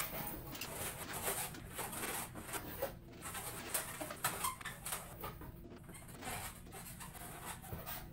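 Latex twisting balloons squeaking and rubbing against each other and the hands as they are twisted and locked into a sea turtle shape, with irregular short squeaks throughout.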